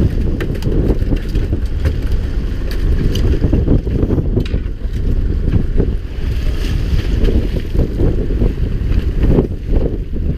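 Wind buffeting the microphone on a boat at sea: a loud, steady low rumble with scattered small knocks.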